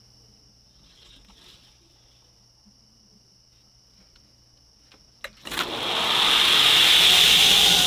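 A belt grinder switched on: a switch click about five seconds in, then the motor and abrasive belt spin up within a second to a loud, steady running noise. Before that only faint shop hum.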